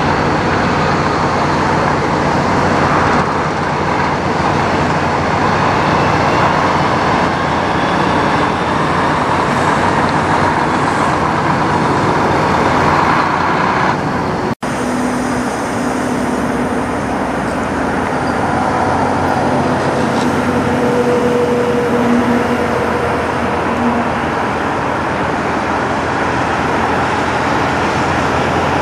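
Diesel engines of semi-trucks running as tractor-trailers pull across a truck lot, a steady engine sound throughout. There is a brief dropout about halfway through.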